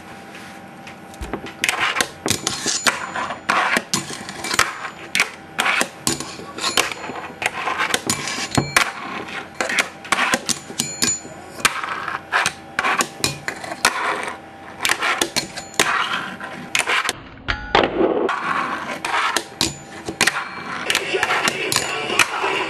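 A fingerboard clacking and rolling on a tabletop and a metal rail: a run of sharp, irregular clacks as the tail pops and the trucks land and grind, with a brief pause about seventeen seconds in.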